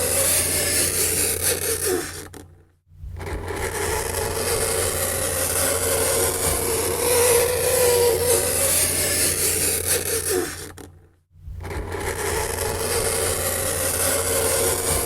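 Fingernails scraping across a chalkboard: a continuous harsh scrape with a wavering squeal, breaking off briefly twice, about two and a half seconds in and about eleven seconds in.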